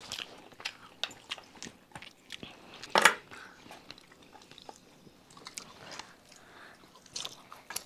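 Close-miked chewing and biting of food: a string of short crunches and wet mouth clicks, with one louder crunch about three seconds in.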